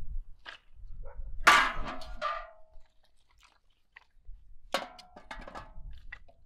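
Split firewood dropped and stacked into a cylindrical steel stove: wooden clunks against the metal body, which rings briefly. There are two loud clatters, about a second and a half in and again near five seconds, with lighter knocks between.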